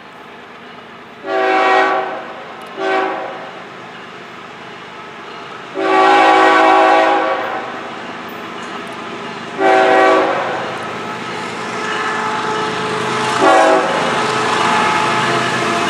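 Freight locomotive air horn sounding five blasts of uneven length, the longest about six seconds in, as it approaches a grade crossing. The rumble of the oncoming train grows louder toward the end.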